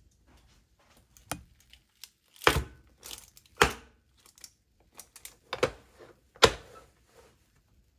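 A baked cheesecake in a parchment-lined metal pan handled with silicone oven mitts and set down on a glass cooktop: a series of sharp knocks with parchment paper crinkling. The loudest knocks come about two and a half seconds in, again a second later, and near the end.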